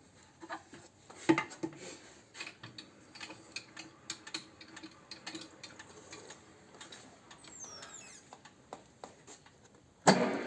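Metal parts clinking and knocking as a YaMZ-236 connecting rod and its tooling are handled and set up, with one sharper knock about a second in. Near the end a machine motor starts suddenly and settles into a steady hum.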